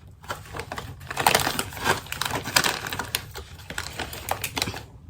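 Potato chips being bitten and crunched, a rapid run of crisp, irregular cracks.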